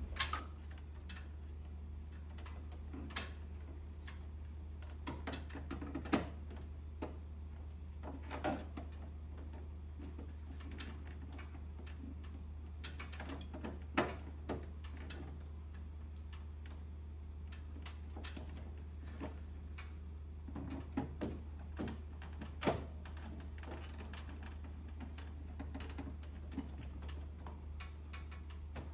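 Scattered clicks and knocks of plastic air-conditioner parts being handled and fitted into place, over a steady low hum.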